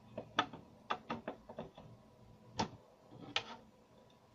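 Hard plastic clicks and taps as the parts of a Kemei KM-680A grooming kit are handled and set on their stand: a quick run of small clicks in the first two seconds, then two louder knocks.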